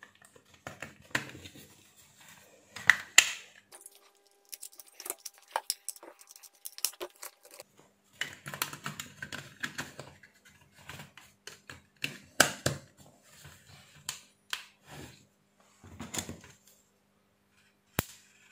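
Plastic handling noise from an electric bug zapper racket being reassembled: irregular clicks, taps and rubbing as the handle casing is fitted together and battery cells are pushed in, with one sharp click near the end.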